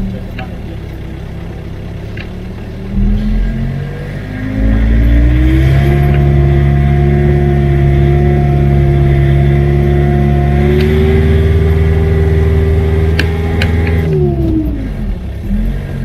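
Engine of the Lesnik-Master all-terrain vehicle, carrying about 500 kg, revving up a few seconds in and holding high, steady revs for about eight seconds before dropping back near the end. A few clicks or knocks come just before the revs drop.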